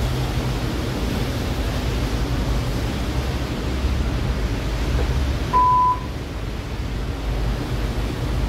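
Steady low rumble and hiss of a standing 81-765 metro car with its doors open at the platform. About two-thirds of the way through comes one short, high electronic beep of about half a second.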